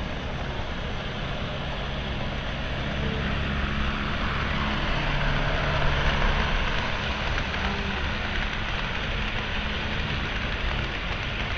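Model train running on the layout track, played back at half speed: a steady low rumble of motor and wheels that swells to its loudest about halfway through, then eases.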